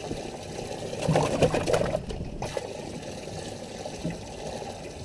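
Water splashing and trickling, loudest between about one and two seconds in, then a brief break and a quieter, steady trickle.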